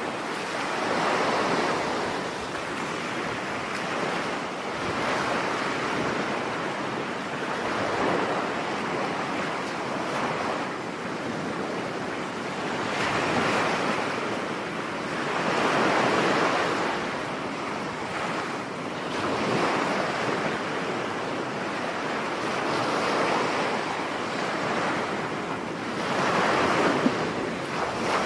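Ocean waves breaking and washing up on the shore, the surf swelling and easing every three to four seconds.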